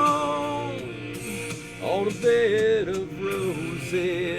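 A man singing with instrumental backing. A long held note with a slight waver ends just under a second in, and a new sung phrase with gliding notes begins about two seconds in.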